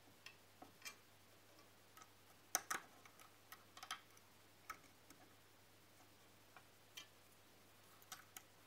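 Near silence broken by scattered small metallic clicks and taps, the loudest a pair about two and a half seconds in. They come from an Allen key and hands working the toothed aluminium belt pulley on the stepper motor shaft while the belt alignment is adjusted.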